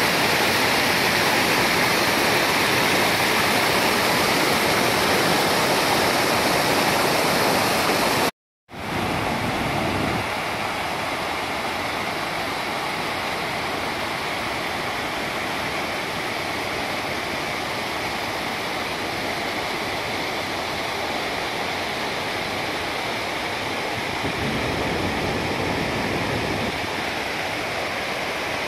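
Floodwater cascading over a stepped concrete dam spillway and churning in the pool below: a steady rush of falling water. It cuts out for a moment about eight seconds in and comes back slightly quieter.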